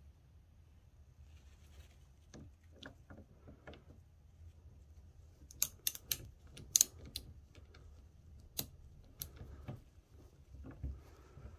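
Scattered sharp metallic clicks and taps of a hand tool working the bar-end weight screw on a scooter handlebar, quickest and loudest about six to seven seconds in.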